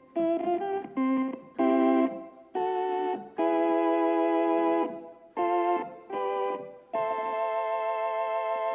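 Galanti (GEM) Caravan portable electronic organ playing a run of short chords, then a longer held chord from about seven seconds in, the tone slightly wavering with vibrato.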